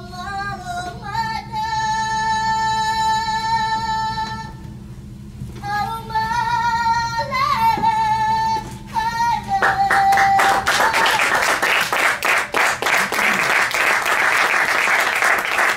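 A woman singing a short melody with long held notes, followed by audience applause starting about ten seconds in.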